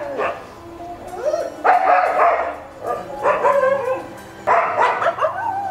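Dogs barking, yipping and whining in three bursts, their pitch bending up and down.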